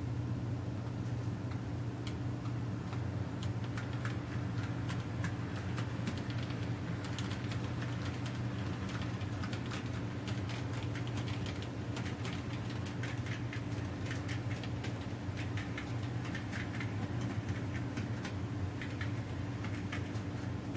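HO scale model train rolling along sectional track, its wheels clicking irregularly over the rail joints and turnouts, more often in the second half, over a steady low hum.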